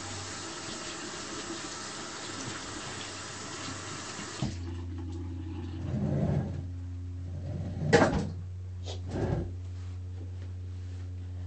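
Bathroom sink tap running as hands are rinsed of soap, shut off abruptly about four and a half seconds in. A few short knocks and rustles follow, the loudest about eight seconds in.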